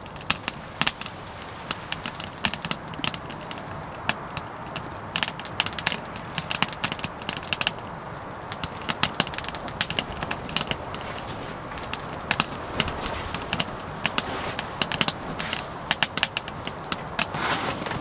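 Wood fire crackling inside a Yukon Wolf box wood stove: irregular sharp snaps, several a second, over a steady low hiss.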